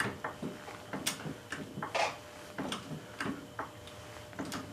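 Freshly rebuilt 1970s Sears hydraulic floor jack being pumped by its handle to lift a car: a series of irregular light clicks and knocks.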